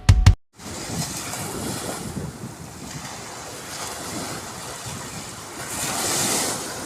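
Sea waves washing ashore with wind buffeting the microphone, a steady rushing that swells louder about six seconds in. The first half second is the end of a music track, which cuts off abruptly.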